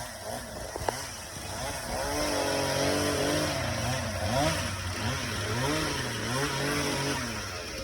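Chainsaw running, its engine pitch rising and falling over and over as it is revved and loaded in the cut, growing louder about two seconds in.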